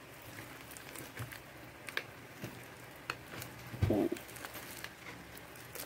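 Sticky, freshly activated glue slime being stirred and scooped in a plastic cup with a metal spoon: soft sticky squelching with scattered small clicks of the spoon against the cup. A short low voice-like sound comes about four seconds in.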